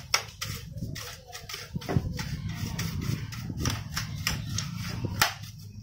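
Handling noise from a disassembled Canon LBP 2900B laser printer: a string of sharp plastic knocks, taps and rubbing as the parts are moved about and dust is cleaned from inside. The loudest knocks come right at the start, about two seconds in and near the end, over a steady low hum.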